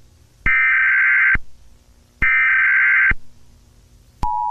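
Emergency Alert System SAME header: two one-second bursts of digital data tones with short gaps between them. About four seconds in, the steady two-tone EAS attention signal begins.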